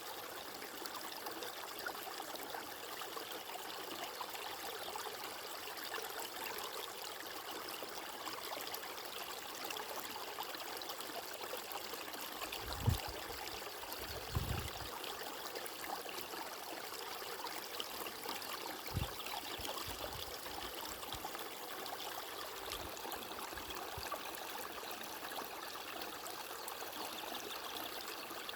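Water flowing steadily in a continuous rushing hiss, with a few brief low thumps about halfway through.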